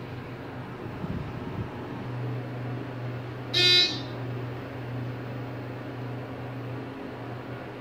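ThyssenKrupp elevator car running, with a steady low hum that comes in about two seconds in and drops away near the end. About halfway through, the car gives a single short, loud, buzzy beep.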